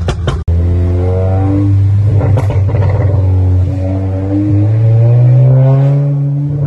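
SEAT Leon Cupra engine heard from inside the cabin, pulling under acceleration, its note climbing with the revs and falling back several times. A rapid pulsing sound cuts off suddenly about half a second in.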